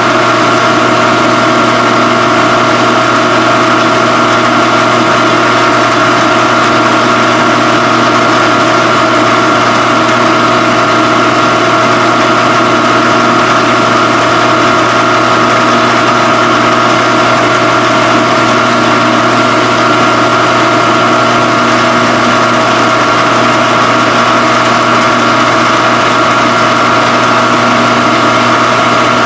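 Phase-O-Matic CNC phase converter running: a steady electrical hum with several fixed tones over a faint hiss, unchanging in pitch and level.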